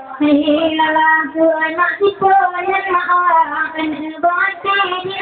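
A group of female voices singing a melody together in unison, with long held notes.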